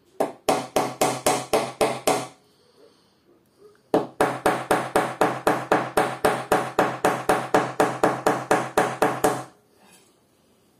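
A ratchet tapping a bent sheet-metal thread catcher from an embroidery machine to flatten it: a quick run of about nine taps, a pause of about two seconds, then a longer run of about twenty-five taps at roughly four to five a second.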